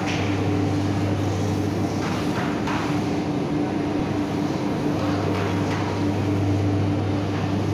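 Steady hum of electric machinery in a shoe factory workshop: a constant low drone with a steady higher tone over it, and a few faint knocks.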